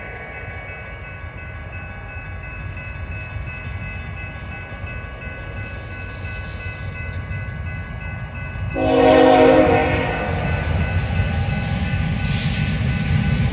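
Railroad crossing bells ring steadily while an approaching BNSF diesel freight train's rumble builds. The locomotive's air horn sounds one loud blast about nine seconds in, lasting about a second.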